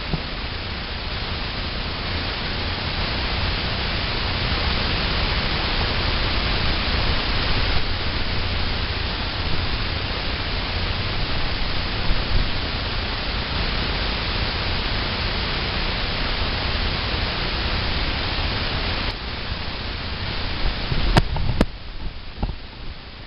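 Steady rushing noise on the microphone, with a few sharp knocks near the end.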